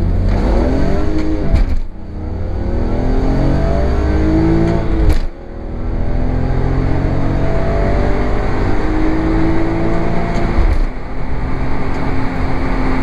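BMW E46 M3's S54 straight-six, heard from inside the cabin, accelerating through the gears. The revs climb, then drop sharply at two quick SMG upshifts about two and five seconds in, climb more slowly again, and settle to a steady run near the end.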